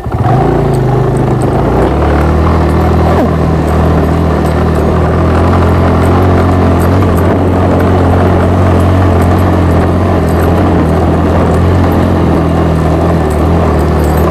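Motorcycle engine running steadily under way at an even pitch while the bike is ridden, with faint clicks and rattles over it.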